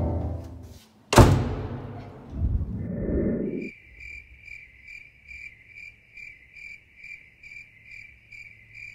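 Music fading out, then a sharp hit about a second in. From about three seconds in, a cricket chirps steadily, a little over twice a second.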